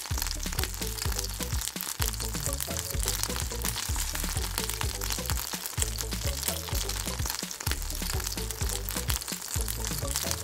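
Churro dough deep-frying in hot oil, a steady sizzle with fine crackling, under background music with a regular beat.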